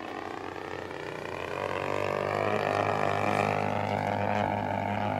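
The single-cylinder two-stroke Desert Aircraft DA-50 gasoline engine and propeller of a radio-controlled Extra 300L in flight, running steadily. It grows louder and rises in pitch about halfway through.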